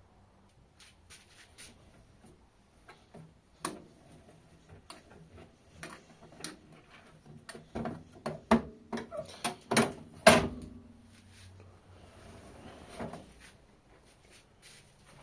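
A run of sharp clicks and knocks, scattered at first, then coming thick and loudest from about eight to ten and a half seconds in before thinning out.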